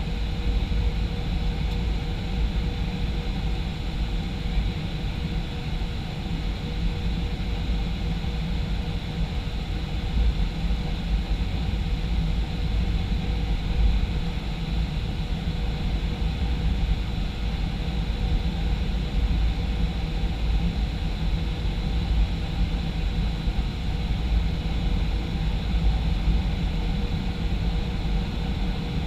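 Steady drone of a Boeing 737-500 in flight, the CFM56 jet engines and rushing airflow, as heard from inside the cabin: a deep rumble and hiss with a faint steady whine, unchanging throughout.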